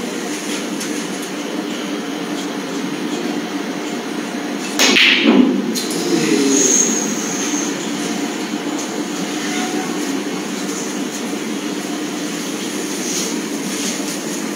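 Steady, loud background noise in a hall, a constant hiss and rumble, with a brief louder burst of noise about five seconds in.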